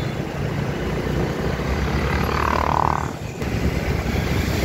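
Wind rumbling on the microphone over road traffic noise while riding along in traffic, with a brief higher sound a little past halfway.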